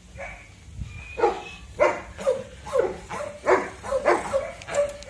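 Golden retriever barking from inside a car, a run of about eight sharp barks at roughly two a second starting about a second in: guard barking as a man reaches in at the car window.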